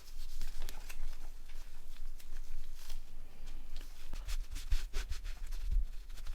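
Handling noise from small phone parts being worked on at a bench: light clicks, taps and rubbing, with a few dull low thumps in the second half.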